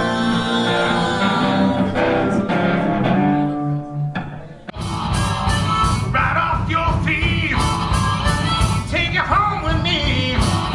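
Music with long held notes fades out about four and a half seconds in. A live rock duo then starts: drum kit beating a steady rhythm under guitar and a man singing.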